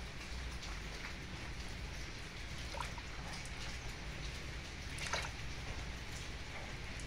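Steady hiss of rain, with small splashes and clicks from hands rubbing razor clams together in a basin of water; the sharpest splash comes about five seconds in.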